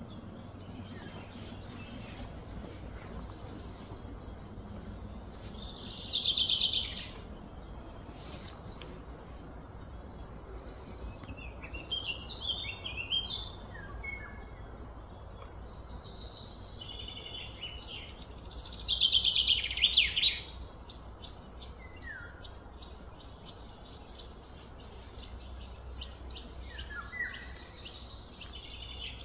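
Birds calling and chirping in the surrounding trees over steady low background noise. A loud, falling call of about a second sounds about six seconds in and again a little before twenty seconds, with shorter chirps in between.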